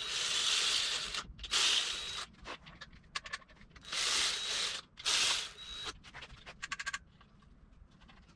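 Ratchet running main cap bolts down on an LS engine block in short bursts of under a second each, followed near the end by a quick run of ratchet clicks.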